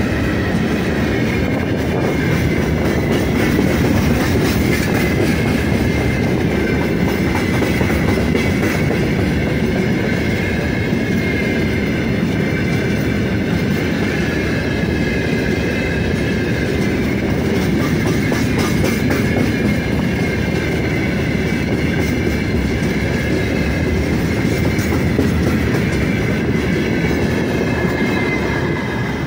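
Freight train of open gondola wagons rolling past at close range: a steady rumble of wheels on rail with clickety-clack over the rail joints and a steady high-pitched wheel ring. Near the end the last wagon passes and the noise starts to drop away.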